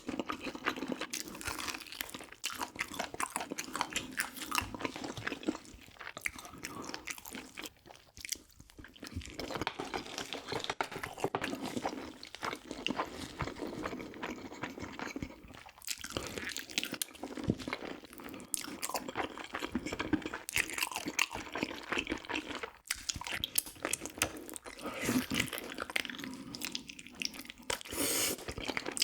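Close-miked eating of soy-braised pig's trotters (jokbal) and kimchi: continuous wet chewing with crunchy bites, dipping briefly a few times.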